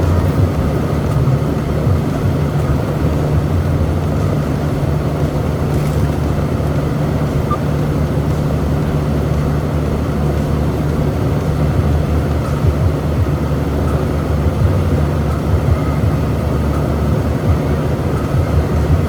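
Semi-truck driving: a steady, loud, low engine and road rumble.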